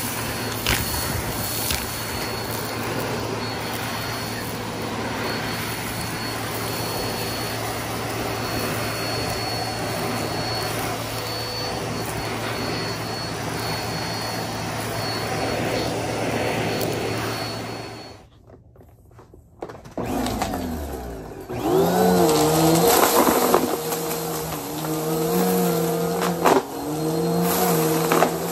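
Vacuum cleaner running steadily as its hose tool sucks dirt and debris off a carpet, cutting off suddenly about 18 seconds in. After a short lull, a motor hum rises in pitch and runs on with its pitch shifting up and down.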